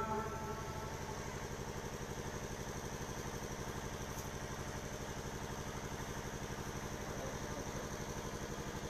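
An engine idling steadily, with an even, rapid throb.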